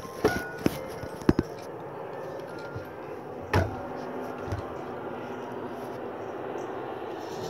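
A few scattered knocks and taps: one just after the start with a short ring, another soon after, two close together about a second and a third in, and a heavier thump about three and a half seconds in, over a steady background hiss with no rhythm.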